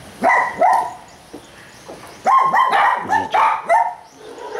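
Dog barking: two quick barks near the start, then a fast run of about eight barks from about two seconds in.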